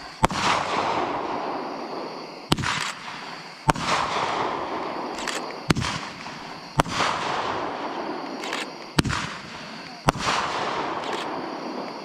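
Aerial fireworks going off in a rapid series: about seven sharp bangs a second or two apart, each followed by a long rolling echo that fades before the next.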